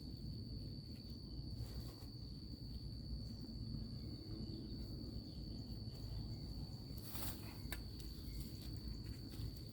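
Insects droning outdoors: one steady, unbroken high-pitched tone. A few brief rustles and scrapes of dry potting soil being sifted by hand, the clearest about seven seconds in.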